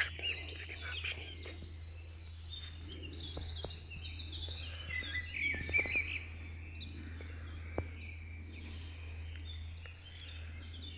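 Several songbirds singing, with fast high trills and runs of repeated notes, thickest in the first half, over a steady low background rumble.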